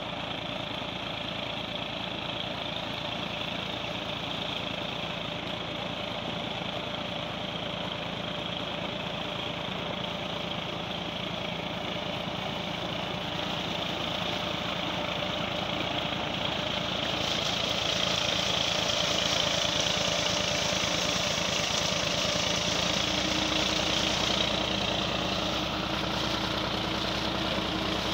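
Massey Ferguson tractor's diesel engine running steadily under load as it drives a tube-well pump through a wooden pulley, with water gushing from the pump's outlet pipe into a brick tank. The rush of water grows louder over the second half.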